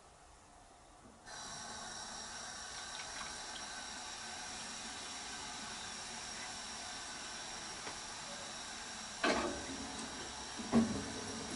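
Steady hiss of a pot of water at the boil, starting suddenly just over a second in, with two loud clanks near the end, about one and a half seconds apart.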